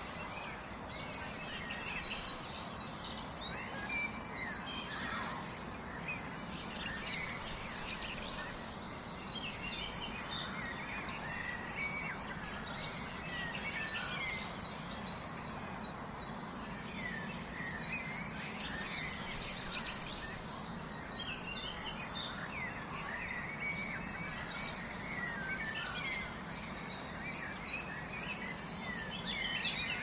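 Steady rush of a waterfall, with small birds chirping and twittering over it in quick short calls throughout.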